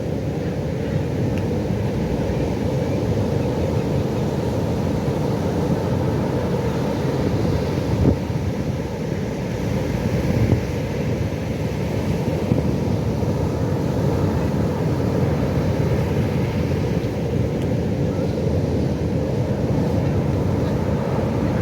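Pacific Ocean surf: a steady, deep wash of breaking waves, with two slightly louder swells about eight and ten seconds in.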